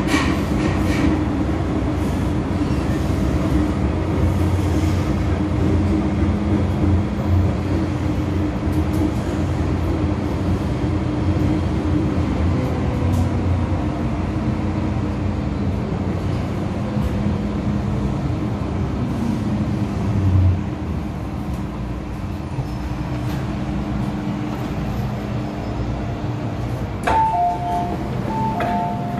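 MTR M-Train electric multiple unit running through a tunnel and braking into a station: steady motor and wheel noise whose motor tones fall in pitch as it slows, with a short low thump about two-thirds through. Near the end a repeated two-note door chime sounds.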